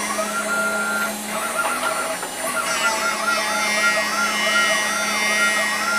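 6040 CNC router running: its stepper motors whine in repeating rise-and-fall arcs as the machine traces a circular path, over the steady hum of the spindle at about 12,000 RPM, with a single-flute end mill cutting ABS plastic. A little over a second in, the pattern breaks briefly, then resumes with quicker arcs, about three a second.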